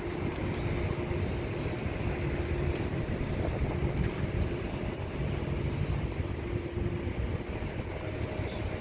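Steady low outdoor rumble with a hiss over it and a faint steady hum, typical of vehicle traffic or wind.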